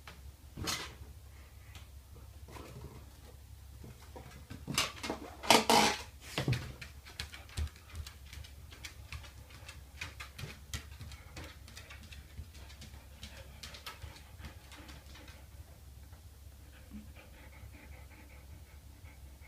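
A dog playing with a balloon: a run of sharp taps and thumps, loudest about five to six seconds in and thinning out after about fifteen seconds, with the dog panting.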